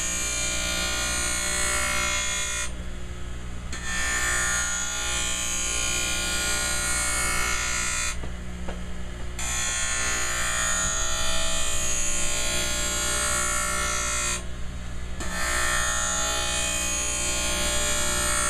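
Skate-sharpening machine's grinding wheel running with a steady motor hum while a steel skate runner is passed along it, grinding the hollow into the blade. The grinding hiss breaks off briefly three times, about every five to six seconds, between passes.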